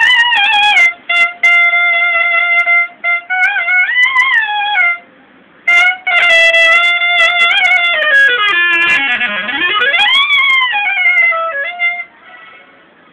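Solo clarinet playing a slow alap: long held notes with pitch bends and slides between them, broken by short pauses, stopping about a second before the end.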